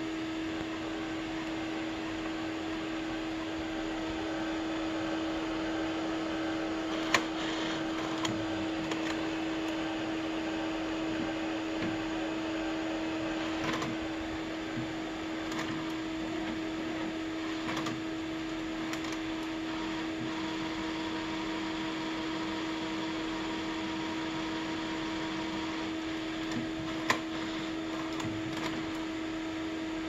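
Epson CW-6000A label printer powering up, its cooling fans running with a steady hum and noisy rush. A few sharp clicks break through, the loudest about seven seconds in and near the end.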